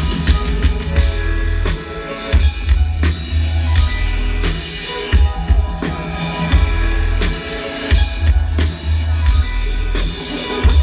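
Live electronic music played loud over a concert sound system, with heavy bass and a steady drum beat, recorded from within the crowd.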